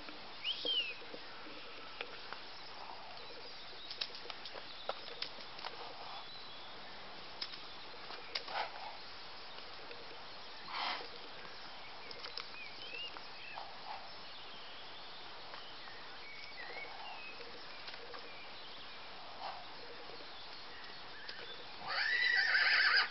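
Young Welsh Section C pony filly whinnying once, loud, near the end. Before that, only scattered faint knocks and a few short bird chirps over a quiet background.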